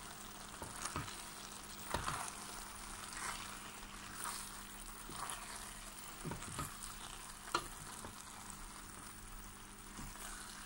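Wooden spoon stirring fusilli pasta through a chicken and tomato sauce in a stainless steel pot, the pan sizzling quietly underneath. A soft scrape of the spoon comes about once a second.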